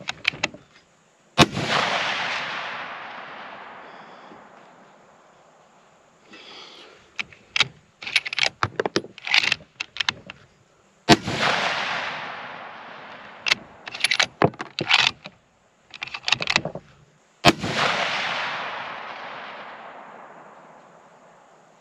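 Three shots from a Mossberg Patriot bolt-action rifle in 6.5 Creedmoor, about a second and a half, eleven and seventeen and a half seconds in, each trailing off over about four seconds. Between the shots come short bursts of clicks as the bolt is cycled.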